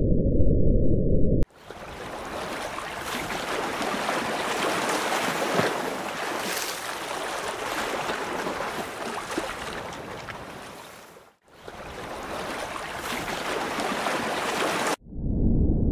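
Rushing, splashing water, a full hiss-like noise, in two takes with a brief break about eleven seconds in. It is framed by a loud, muffled low rumble in the first second and a half and again near the end.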